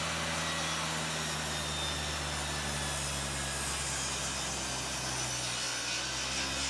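Table saw running and cutting through a wooden board: a steady motor hum with the blade rasping through the wood.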